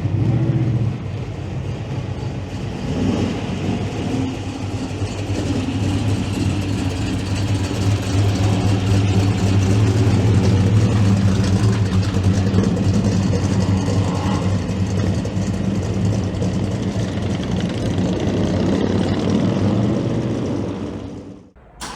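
A 1961 Pontiac Catalina's V8 engine running steadily. It grows louder toward the middle, eases off, then cuts off abruptly near the end.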